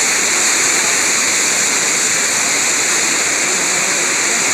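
Steady, loud rushing noise of wind and sea: an even hiss without breaks.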